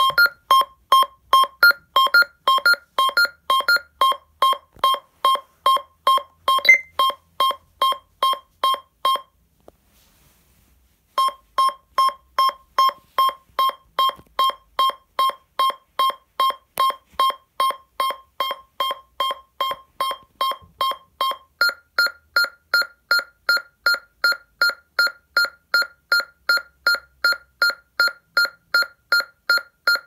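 ADE Optima 2 Plus alarm panel sounding rapid electronic beeps through its loudspeaker, about three a second. The beeping stops for about two seconds a third of the way in, resumes at a lower pitch, then changes to a single higher tone about two-thirds of the way through.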